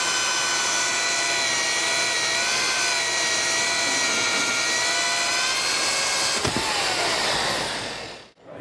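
Cordless drill driving a hole saw down through a wooden 2x board, a steady high motor whine over the rasp of the teeth cutting wood, with a brief dip in pitch about two and a half seconds in. Near the end the whine falls in pitch and the sound fades out.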